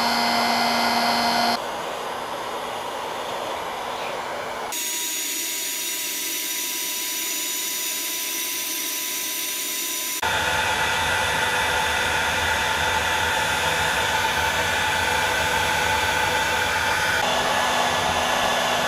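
Bosch heat gun blowing hot air steadily to dry out and thaw a wet, iced-up machine tool. Its tone and level jump abruptly four times.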